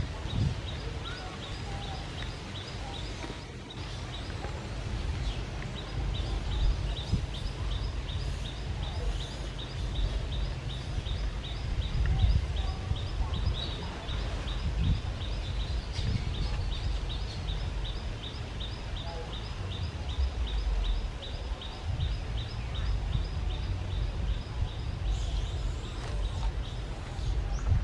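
Forest ambience: a high, rapid chirping that repeats a few times a second, over a low rumble.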